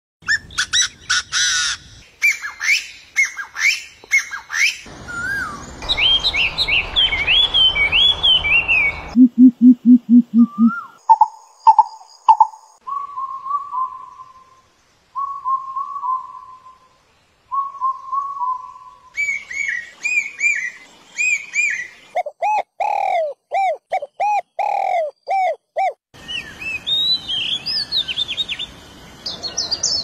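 Calls and songs of several different bird species played one after another, each clip cutting abruptly to the next: quick chirps and trills, a rapid run of low notes about nine seconds in, repeated downslurred calls, and a series of paired calls.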